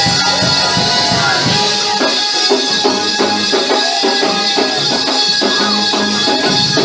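Loud up-tempo gospel praise-break music: held and gliding instrument notes over a quick, steady percussion beat.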